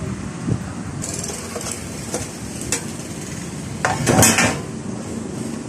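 Sheet-metal top cover of an LG DVD player being worked loose and lifted off: scattered light clicks and metal clinks, with a louder clatter about four seconds in, over a steady background hiss.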